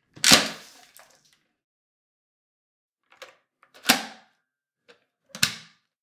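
Sharp plastic clacks from emptying a Dyson V8 cordless vacuum's clear bin. One comes near the start as the red release lever is pulled and the bin base drops open. Two more come about 4 s in and about a second and a half later, as the bin base is snapped shut and latched, with a few faint ticks between them.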